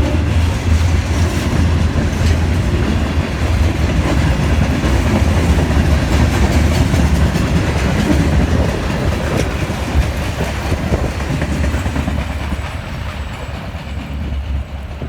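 A freight train's cars rolling past over the rails, with a steady low rumble and wheels clacking over rail joints. It dies away over the last few seconds.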